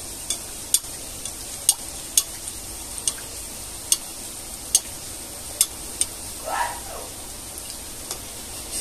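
Rose-shaped puri deep-frying in hot oil in a kadhai on a low flame: a steady sizzle broken by sharp pops and crackles, roughly one a second at uneven intervals.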